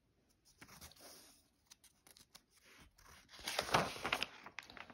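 A notebook page being turned by hand: paper rustling, faint at first and loudest about three and a half to four seconds in.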